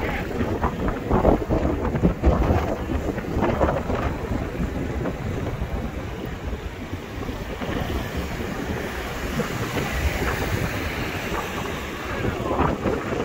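Wind buffeting the microphone outdoors: a heavy low rumble, gustier in the first few seconds and steadier after.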